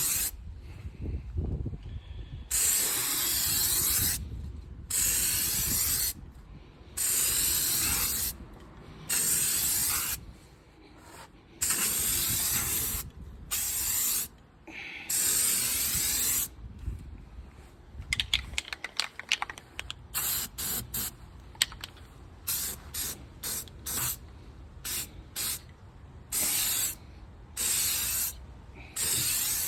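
Aerosol can of truck bed liner coating spraying in repeated hissing bursts, longer ones of a second or two at first, then many short quick bursts toward the end, with a brief rattling run of clicks around two-thirds in.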